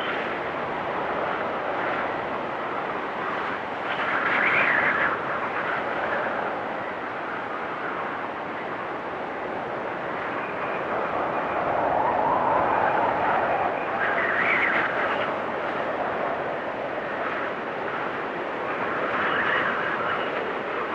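Storm wind blowing steadily, swelling in gusts several times, with a faint high whistle.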